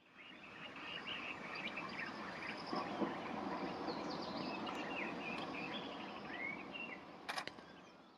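Wild birds chirping and calling in short rising and falling notes over a steady background hiss of outdoor ambience, with a sharp click near the end.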